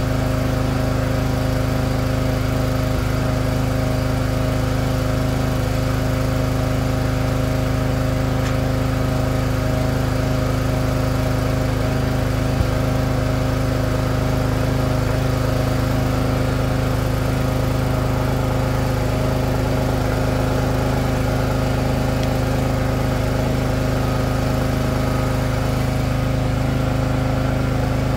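Split-Fire 2265 log splitter's small gas engine running at a steady speed, with one brief click about halfway through.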